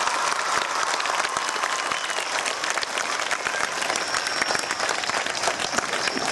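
Large crowd of schoolchildren and adults applauding together, a dense, steady clapping that goes on throughout.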